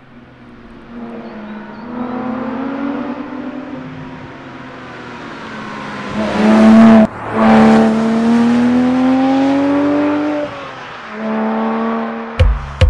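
Porsche 911 sports car engine accelerating hard past close by, its pitch climbing, dropping at a gear change about seven seconds in, then climbing again, loudest around the pass. Electronic music with hard drum hits cuts in near the end.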